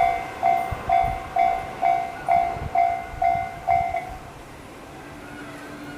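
Japanese railway level-crossing warning bell dinging about twice a second, its electronic tone slightly distorted, then stopping about four seconds in.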